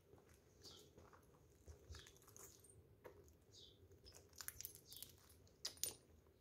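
Faint footsteps crunching on dry leaves and rubble on a brick path, with a small bird giving short falling chirps several times, about once a second.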